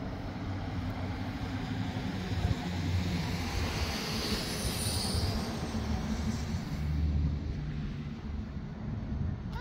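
A truck driving past: a steady rumble of engine and tyres, with a hiss that swells to its loudest in the middle.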